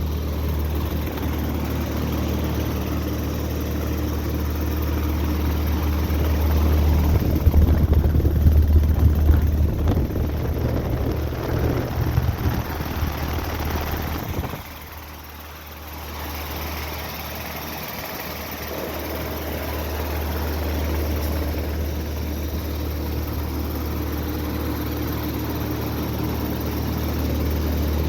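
A 2017 Carrier Sentry 3-ton heat pump's outdoor unit running in cool mode: a steady low hum from the compressor with the whoosh of the condenser fan. It grows louder and rougher for several seconds near the middle, drops off sharply about halfway through, then slowly builds back up.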